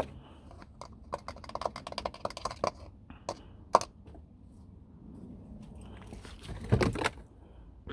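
Small clicks and rattles of handling a plastic oil jug and the engine oil filler cap after topping up the oil. A sharp click comes just under four seconds in, and a heavier knock with a scrape about seven seconds in.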